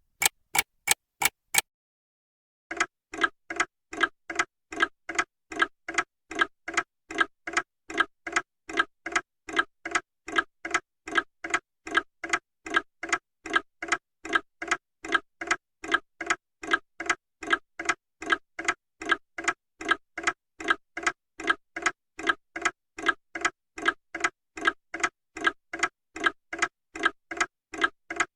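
Clock ticking: crisp, high clicks from a desk clock stop about a second and a half in. After a short silence, a mantel clock starts a fuller, lower tick-tock of alternating strong and weak beats, about three a second.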